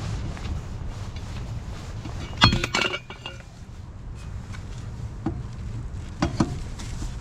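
A quick cluster of sharp clinks with a short ring about two and a half seconds in, then two single clinks near the end, over a steady low rumble.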